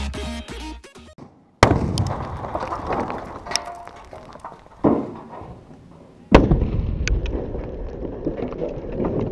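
Three sudden explosions of Tannerite packed in a washing machine, about a second and a half in, about five seconds in and about six seconds in, the last the loudest, each trailing off in a long rumble.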